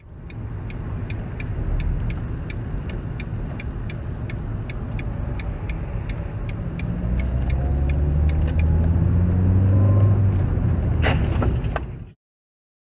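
A car's engine and road rumble heard from inside the cabin, with a turn-signal indicator ticking about three times a second for the first eight seconds while the car changes lanes. From about seven seconds in the engine pitch rises as the car accelerates, and a few sharp knocks come near the end before the sound cuts off suddenly.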